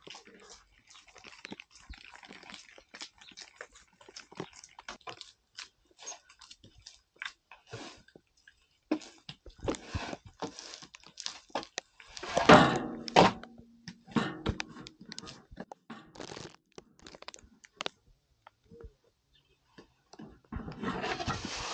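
Crunching and chewing of freshly baked cookies being eaten, with scattered small clicks and crackles. A louder burst of noise about twelve seconds in.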